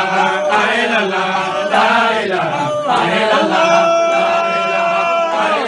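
Men's voices chanting an Islamic devotional chant, the line settling into one long held note about three seconds in that drops away near the end.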